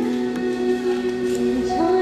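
Slow singing in long held notes, several pitches sounding together, moving to new notes near the end.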